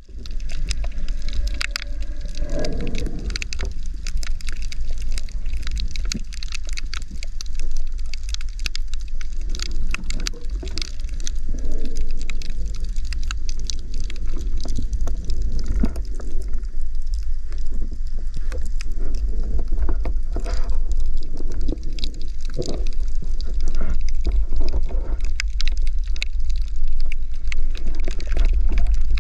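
Underwater sound recorded through a camera housing: a steady low rumble of water moving against the housing, with many scattered sharp clicks and crackles and occasional gurgling swells.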